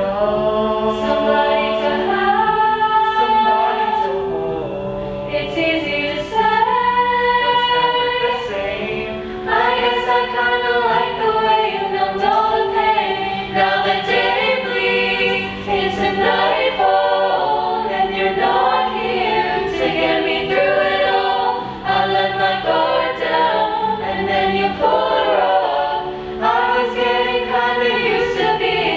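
A high-school chorale of mixed voices singing a song in harmony, with held chords shifting every second or two.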